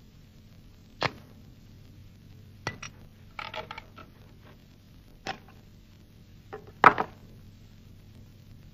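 A revolver being handled: separate sharp metallic clicks as the cylinder is worked and loaded, a quick run of small clicks about three and a half seconds in, and a louder clack near the end as the gun is set down on the board.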